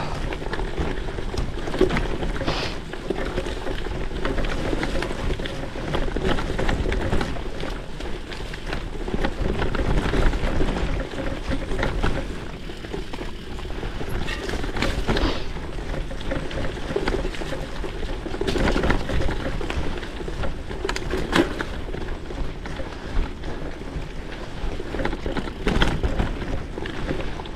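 Gravel bike with WTB Byway 650×47c tyres rolling over an unpaved mountain track: a steady rolling noise from the tyres, broken by frequent small knocks and rattles as the bike goes over bumps.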